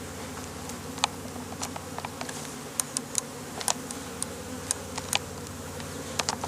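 Honeybees humming steadily from an open hive, with scattered sharp clicks throughout.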